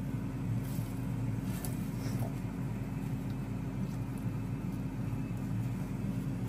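A steady low mechanical hum, with a few faint clicks of metal tongs against the frying pan.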